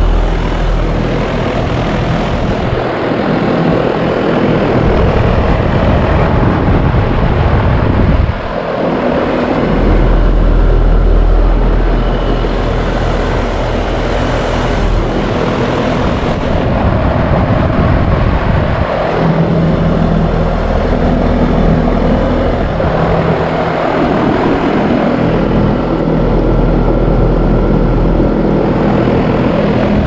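2013 Trane XB13 three-phase heat pump outdoor unit running in heat mode: a steady compressor hum under the rush of the spinning condenser fan. The unit is iced up, which the owner takes for the sign of a bad control board and/or sensor.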